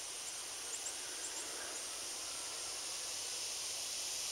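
Steady high-pitched outdoor hiss that slowly grows louder toward the end, with a few faint short chirps in the first second or so.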